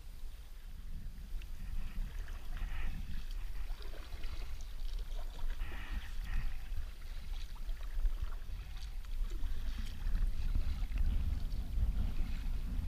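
Kayak paddle dipping and splashing, water trickling off the blade, over a steady low rumble of wind on the microphone.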